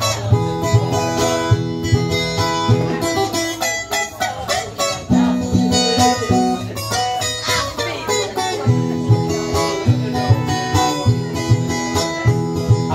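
Viola caipira, the Brazilian ten-string guitar, playing an instrumental break: a plucked melody over repeated low bass notes, with no singing.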